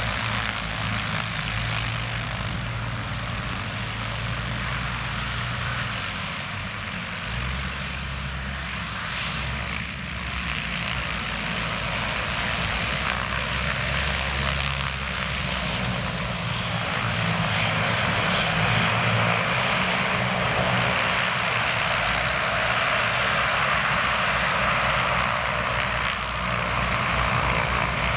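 Zlin Z-137T Agro Turbo's turboprop engine running on the ground: a continuous rushing hiss with a thin, high whine that wavers in pitch, growing louder a little past halfway.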